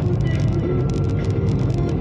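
Steady car cabin noise, with a dense low engine and road rumble, heard from inside a car. Faint music plays under it.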